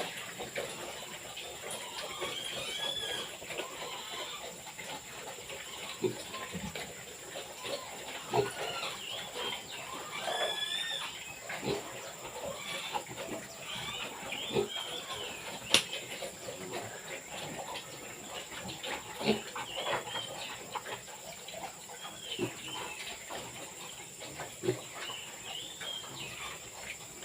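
Pigs in a pen feeding, with scattered short knocks and snuffles, while small birds chirp repeatedly over a steady high-pitched drone.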